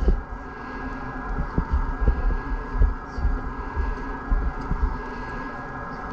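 A plastic squeegee and gloved hands working resin-soaked fibreglass cloth around a surfboard's rail, with rustling and irregular low dull thuds of handling. A faint steady high whine runs underneath.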